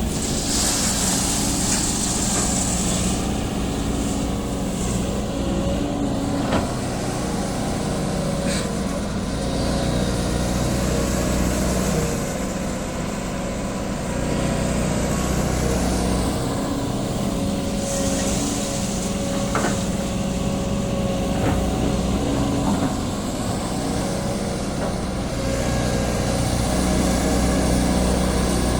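Sany SY215C hydraulic excavator running steadily while it loads stones, with a few sharp knocks and two short bursts of hiss.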